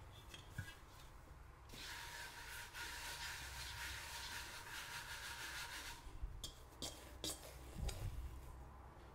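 A hand rubbing a light dusting of flour across a wooden chopping board: a faint, dry brushing hiss lasting about four seconds, followed by a few light clicks and knocks.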